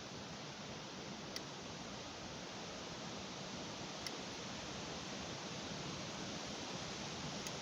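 Faint, steady background hiss with two small clicks, one about a second in and one near the middle.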